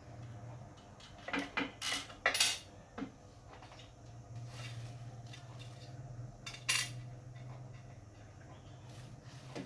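Small hard objects clinking and clattering: a quick run of knocks about a second in and one more clink near seven seconds, over a steady low hum.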